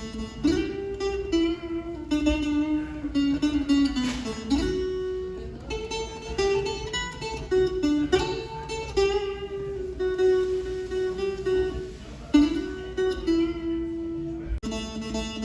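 Canjo, a one-string can-bodied instrument, plucked to play a melody one note at a time, with notes stepping up and down and some held about a second.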